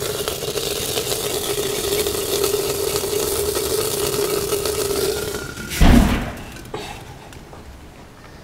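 Cañihua grain being stirred and toasted in a hot clay toasting pot over a wood fire: a steady hiss with a low steady hum. A loud thump comes about six seconds in, and after it the sound is quieter.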